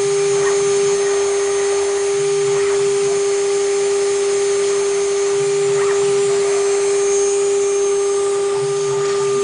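Water-cooled spindle of a small CNC router running with a steady high whine while engraving plastic, a lower hum coming and going a few times underneath.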